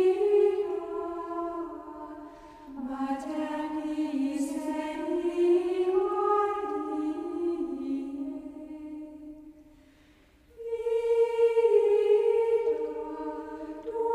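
Sung plainchant as background music: a single unison melodic line of long held notes, pausing briefly about two and a half seconds in and again around ten seconds in before the singing resumes louder.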